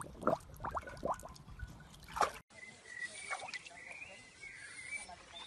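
A dog lapping water with its tongue in a run of short wet laps. The sound drops out briefly just under halfway, then a few more laps follow.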